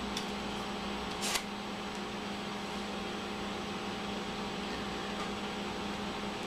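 Steady low room hum over a faint hiss, with one brief rustle about a second in as the foam-board piece is handled.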